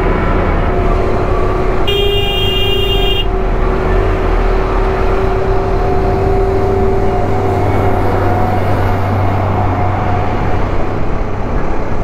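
Motorcycle horn sounding once for about a second and a half, a warning to the vehicle ahead before overtaking between two vehicles. It sounds over steady road and wind noise from the moving bike and a droning tone from nearby traffic.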